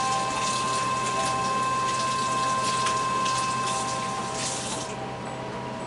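Kitchen tap running with hands being washed under it, water splashing. The tap is shut off about five seconds in.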